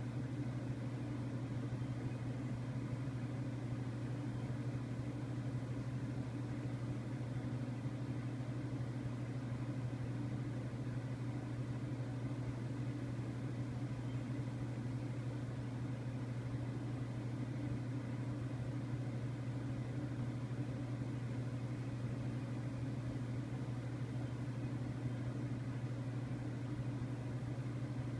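A steady, unchanging low mechanical hum.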